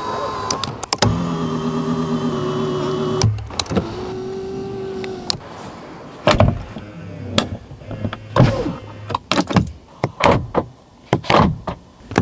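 A car's small electric motor whirring in two steady runs over the first five seconds or so, then a string of sharp clicks and knocks.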